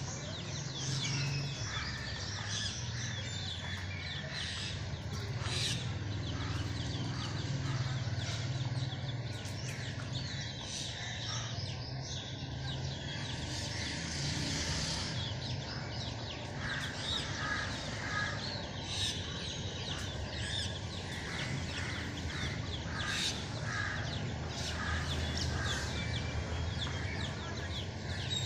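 A flock of birds calling over and over, many short calls overlapping, over a steady low rumble of background noise.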